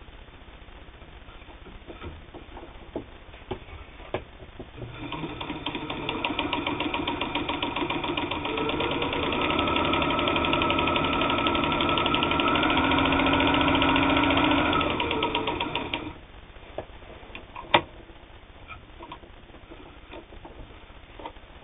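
New Home manual zigzag sewing machine with all-steel gears, made by Janome, sewing a straight stitch through cotton sheeting. It starts about five seconds in, grows louder as it runs fast and even with rapid needle strokes, and stops about sixteen seconds in. A few light clicks come before it and one sharp click after.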